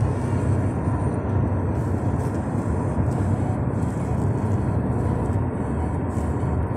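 Steady road and engine noise heard inside a car cabin at highway speed: a continuous low rumble of tyres and motor.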